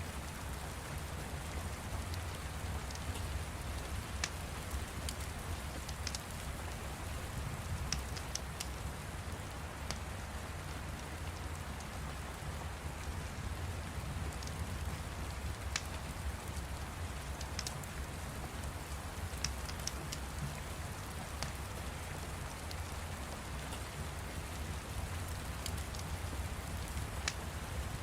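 Steady rain with scattered small crackles of a fire.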